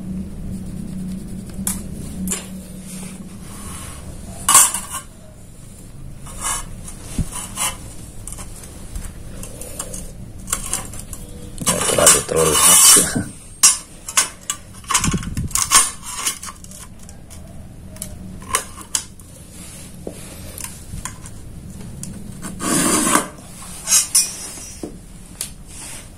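Steel ruler and steel try square clinking, tapping and sliding on a thin steel plate as it is measured and marked. Scattered sharp clicks, with longer scraping clatters about twelve seconds in and again near the end.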